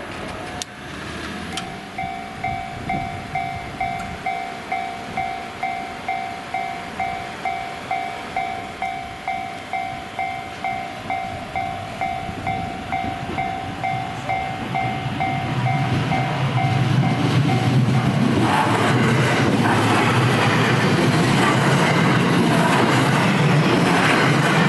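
Japanese railway level-crossing warning bell ringing in a steady two-tone pattern, about two strikes a second. A low rumble builds about two-thirds of the way in, then a JR West electric commuter train passes close over the crossing and its wheel and running noise covers the bell for the last quarter.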